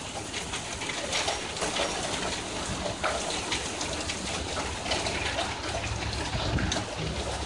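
Steady rain falling, with many small patters and drips.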